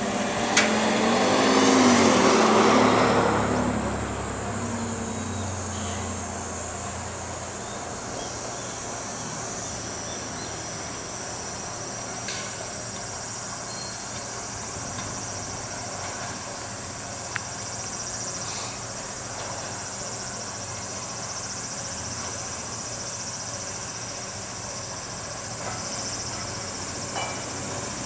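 Kanto Railway KiHa 2400-series diesel railcar idling at the platform, a steady low engine hum, with insects buzzing high in the background. In the first four seconds a louder engine sound with a wavering pitch swells and fades.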